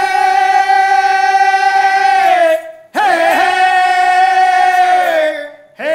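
Pala singer's voice holding two long sung notes, each about two and a half seconds, each sliding down in pitch at its end, with a brief breath between them.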